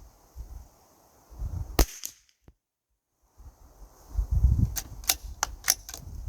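A single shot from a Keystone Cricket 722PT .22 rimfire rifle, a sharp crack about two seconds in. A couple of seconds later comes a quick run of small metallic clicks as the bolt is worked to open the action and extract the spent case. Wind rumbles on the microphone throughout.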